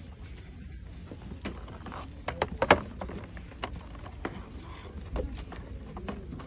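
Metal wire shopping cart rattling, with irregular sharp clicks and knocks, the loudest a little under three seconds in, over a low steady rumble.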